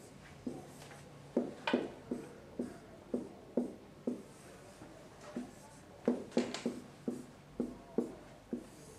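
Felt-tip marker writing on a whiteboard: a run of short taps and strokes, about two a second, with a pause near the middle and a quicker cluster about six seconds in.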